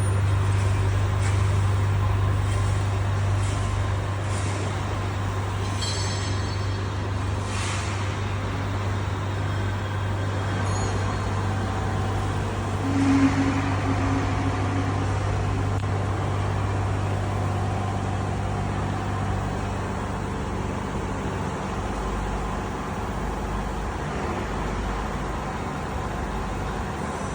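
CNC conveyor-roller welding machine running with a steady electrical hum. Two short hisses come about six and eight seconds in, and a brief tone about thirteen seconds in.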